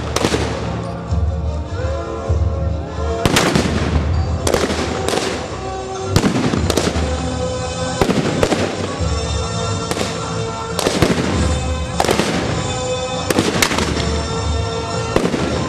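Music with a steady bass and held tones, overlaid by sharp, loud bangs that come irregularly, often in pairs, about every half second to second and a half.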